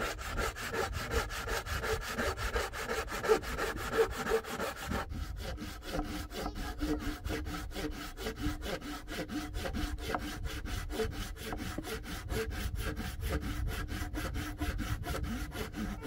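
Hand saw cutting into a wooden log in steady, evenly repeated strokes, the blade ringing with a pitched rasp as it rubs through the wood.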